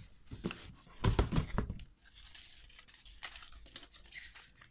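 Cardboard box flaps and paper leaflets rustling and crinkling as they are handled and pulled out of the box, loudest about a second in, with a few dull knocks from the box.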